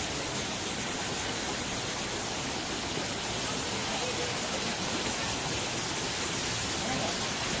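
Steady rushing of a waterfall pouring into the elephant pool, an even hiss with no breaks, with faint voices of people nearby.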